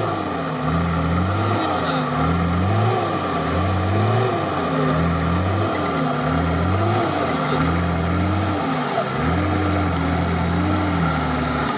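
Nissan Patrol's 4.2-litre naturally aspirated diesel engine working under load while bogged in mud, its revs rising and falling in a steady rhythm about once every second and a bit, as it strains against a winch cable.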